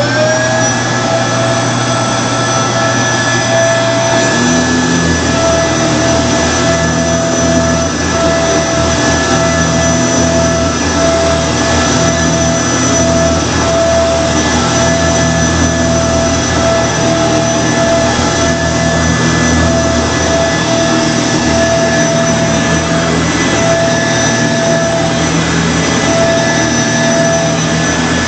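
2006 Kenmore Progressive Intelliclean canister vacuum cleaner running steadily with a high motor whine, just settling at full speed at the start. A lower hum joins about four seconds in.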